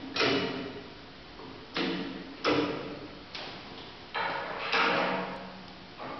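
Mechanical clunks from a butterfly valve's hydraulic actuator and counterweight linkage being worked by hand: about six sudden strokes at an uneven pace, each fading within a second.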